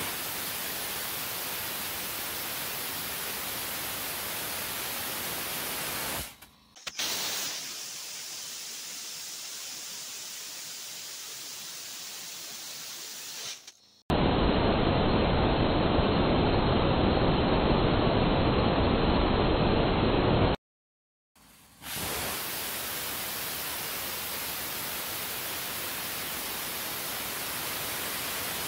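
Small compressed-air and gaseous-propane rocket engine with an aerospike nozzle firing, running fuel-rich: a steady rushing hiss of exhaust. It breaks off and starts again about a quarter, halfway and three-quarters of the way through, and the middle stretch is louder than the rest.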